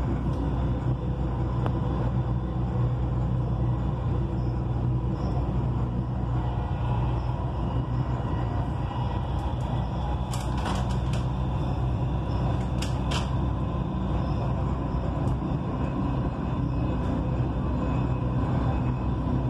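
Dubai Metro train running along the track, heard from inside the car: a steady low rumble with a faint steady hum. There are a few sharp clicks about ten seconds in and a couple more around thirteen seconds.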